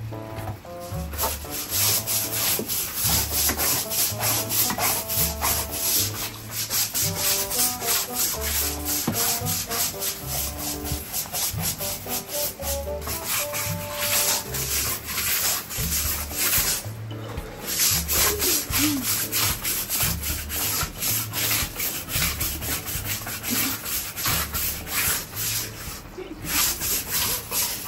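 Stiff-bristled deck brush scrubbing wet wooden deck tiles in rapid repeated strokes, pausing briefly twice.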